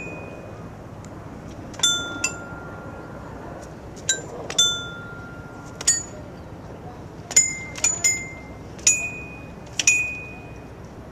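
Chime tones from a dance-chimes box set into the pavement, triggered as hands and feet press its metal plates: about ten bell-like notes at differing pitches, each struck sharply. Some ring on for a second or two, and the notes come faster in the second half.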